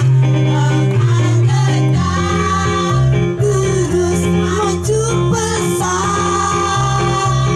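Women's choir singing into microphones over instrumental accompaniment with a stepping bass line.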